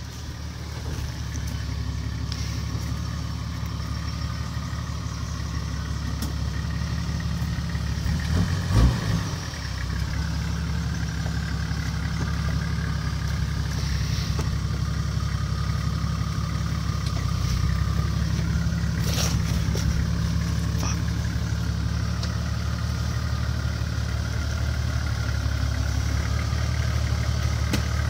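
Nissan Patrol GQ's turbocharged TD42 straight-six diesel running steadily at low revs, crawling over a rutted off-road track, with a brief louder burst about nine seconds in.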